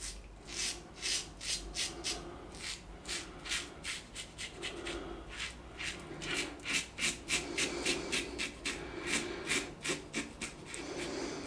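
Blackland Osprey adjustable safety razor, set to setting 3 with a Gillette Rubie blade, scraping through lathered stubble against the grain in short strokes, about three a second.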